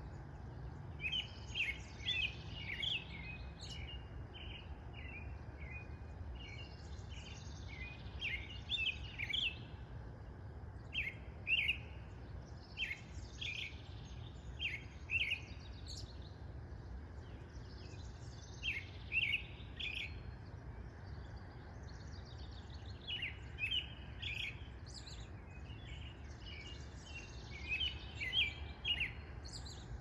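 American robin singing: short phrases of clear whistled notes, repeated every few seconds with pauses between, over a steady low background rumble.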